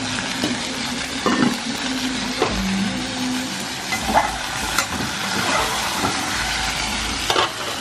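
Pans of food sizzling and bubbling on the stove: gueroba (guariroba palm heart) sautéing in chicken fat and chicken pieces bubbling in their broth. A handful of short metal clinks sound through it.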